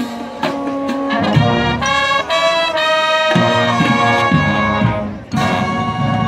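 Marching band playing, led by its brass: a run of short, punched chords, then held chords. The sound drops away briefly about five seconds in, and the full band comes back in on a loud sustained chord.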